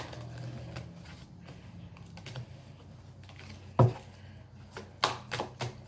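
Tarot cards being shuffled by hand: soft, irregular clicks and flicks of the cards, with a sharper knock just before four seconds in and a quick run of clicks near the end.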